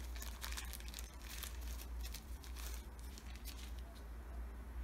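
A tampon's wrapper being torn and peeled open by hand: a faint, quick run of small crinkles and tearing crackles that stops about three and a half seconds in.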